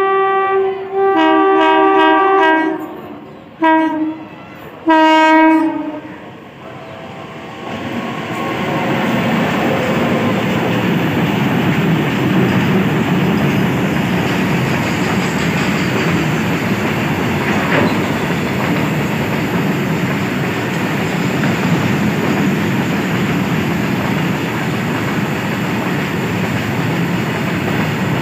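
Locomotive horn sounding four blasts over the first six seconds. Then a goods train of steel open and flat wagons runs through the station without stopping, its wheels rumbling and clattering on the rails; the noise builds over a few seconds and holds steady.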